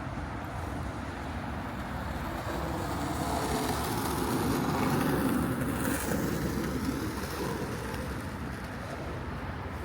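Road traffic: a vehicle passing by, growing louder to a peak about halfway through and then fading, over a steady background of traffic noise.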